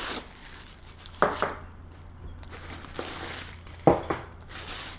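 Packaging rustling and crinkling in short bursts, with a few sharp knocks, as a boxed shower fixture and its valve are unpacked and handled.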